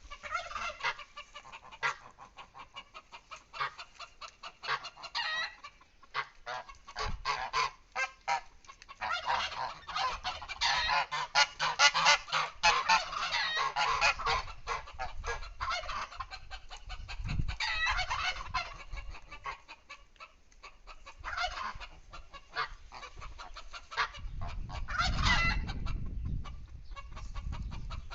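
Mixed poultry flock calling: many short honking, quacking calls and chicken clucks overlapping, densest around the middle. A low rumble comes in near the end.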